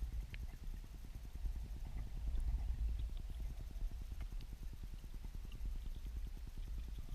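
Turbulent weirpool water heard through an underwater camera housing: a steady low, fluttering rumble, with a few faint clicks scattered through it.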